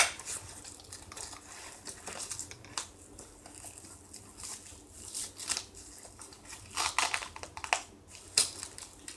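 A leg holster's straps and fittings being handled and adjusted: crinkly rustling and scraping with scattered sharp clicks, several of them bunched together about seven seconds in.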